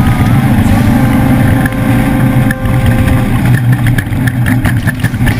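Ford off-road race truck's engine running hard and loud. A steady whine sits over it until about three seconds in, and repeated sharp knocks and clatters join it from about three and a half seconds on.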